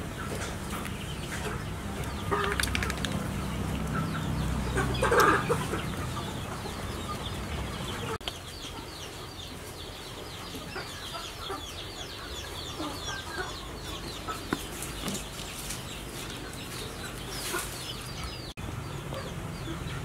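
Chickens clucking, loudest about five seconds in, with repeated short high chirps later on.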